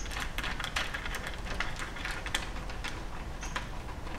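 Quick, irregular small metal clicks and ticks from a wrench backing out the bolts of the reinforcing bars on a Toyota Prius hybrid battery pack.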